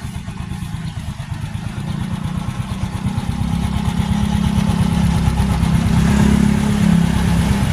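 Yamaha motorcycle engine running with a rapid, even low pulsing, growing louder a couple of seconds in and then holding steady.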